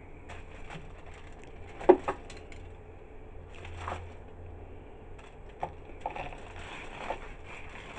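Scattered metal clinks and knocks as a rotisserie chicken on its metal spit is lifted out of an air fryer with the spit-lifting tool and set down on a foil tray. The loudest pair of knocks comes about two seconds in, and a low steady hum runs underneath.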